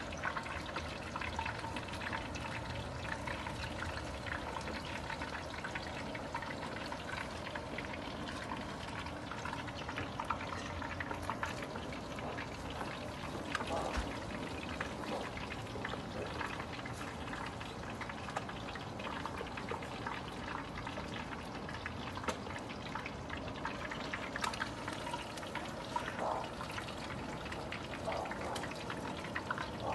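Whole mojarras deep-frying in hot oil in a steel plow-disc pan: a steady sizzle with constant small pops and crackles.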